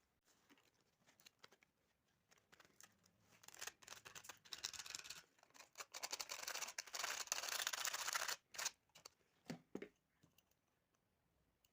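Rapid, rasping scraping that starts about three and a half seconds in and runs for nearly five seconds, followed by a few separate clicks.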